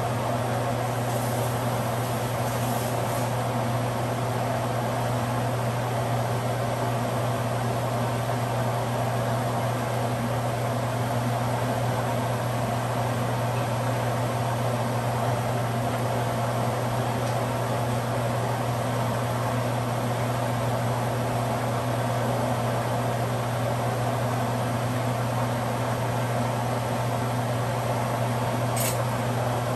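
Steady hum of a fan motor running, with a single short clink near the end.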